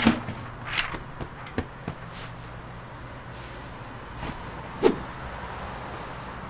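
Quiet city street ambience with a steady traffic hum under it. A few short hits and clicks come in the first two seconds, and one louder sharp hit about five seconds in.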